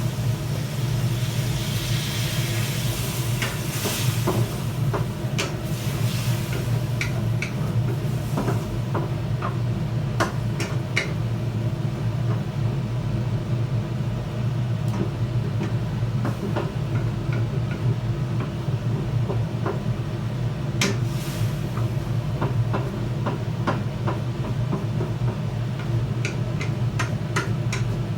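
Stir-frying in a pan: food sizzling, with scattered clicks and taps of a spatula against the pan, over a steady low hum. The sizzle is strongest in the first few seconds.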